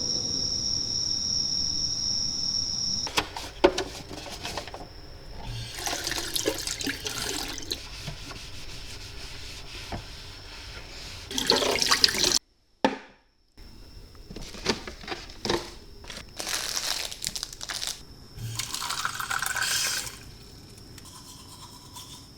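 Water running from a tap into a small sink in several separate bursts, with knocks and clatter in between.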